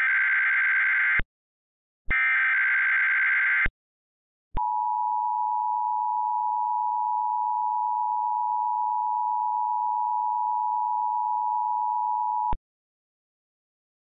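Emergency Alert System SAME header: two bursts of warbling digital data, each about a second and a half long. About four and a half seconds in, the EAS attention signal follows: a steady two-tone sound at 853 and 960 Hz, held for about eight seconds and cut off cleanly.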